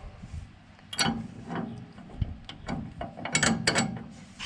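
Irregular metallic clicks and ratcheting from hand tools working on a clutch pedal adjuster, a few single clicks and then a quick cluster near the end.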